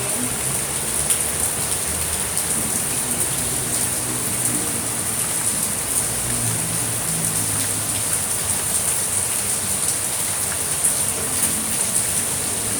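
Steady rain falling, an even, dense hiss with a bright high edge that holds without a break.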